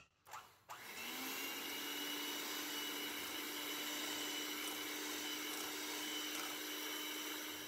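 Electric hand mixer beating egg whites in a glass bowl. The motor starts about a second in, its hum rising briefly in pitch as it comes up to speed, then runs steadily.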